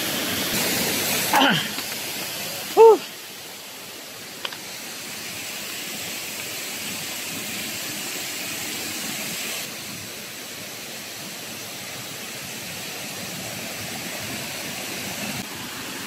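Steady rush of fast-flowing water at the Pungit waterfall, with a short call about three seconds in and a faint click shortly after.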